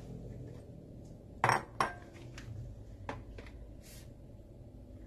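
Glass mixing bowl being set down on the kitchen counter: two sharp clinks close together about a second and a half in, then a lighter knock and a short scrape.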